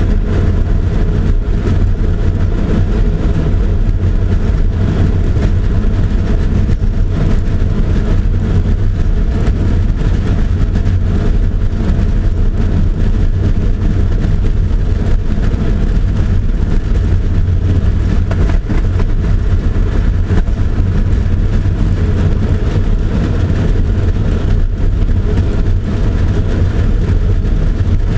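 Land-speed streamliner heard from inside its cockpit while rolling out at low speed after shutdown: a loud, steady, low mechanical rumble.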